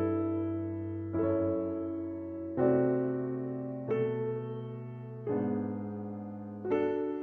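Background music: slow electric piano chords, a new chord struck about every second and a half and left to fade.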